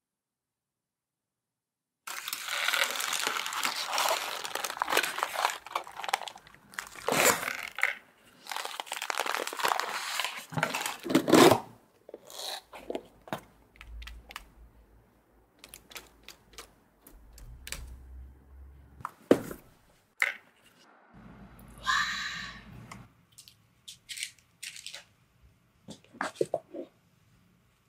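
Paper liners and cardboard takeaway boxes crinkling and rustling loudly as they are handled and opened. This starts after a short silence and lasts about nine seconds, then gives way to scattered taps, small knocks and softer rustles as fried chicken and egg tarts are handled.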